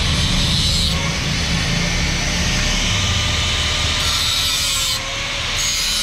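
Handheld angle grinder grinding into a steel pipe: a steady, harsh grinding noise with a motor whine that wavers slightly in pitch. The noise dips a little about five seconds in.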